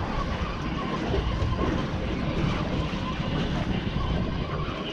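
Steady wind rumble buffeting the microphone on an open boat at sea.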